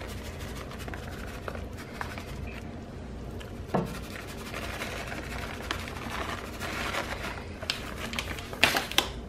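Quiet scraping and rubbing of kitchen handling as grated Parmesan is sprinkled over pasta in a pan, with a sharp tap about four seconds in and a few sharper taps near the end.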